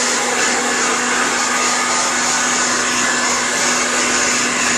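Handheld hair dryer running steadily: an even rush of blown air over a constant low hum.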